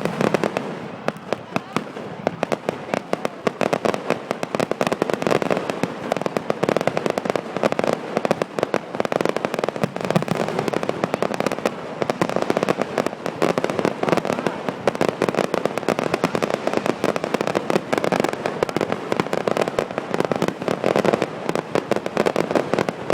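Fireworks display: a dense, unbroken run of bangs and crackles, many reports each second.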